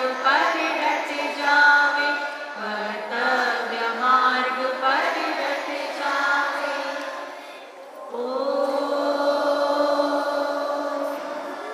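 A group of voices chanting a prayer-like verse in unison. After a brief pause about eight seconds in, they hold one long note.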